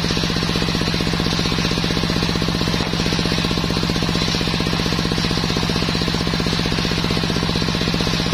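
Belt-driven table circular saw ripping sengon wood boards, its blade hissing through the timber over the steady, rapid chugging of the engine that drives it.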